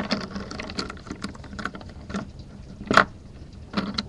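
Lego bricks clicking and rattling as the plunger of a home-built Lego candy machine is pushed by hand, with a sharper knock about three seconds in and a few more just before four seconds.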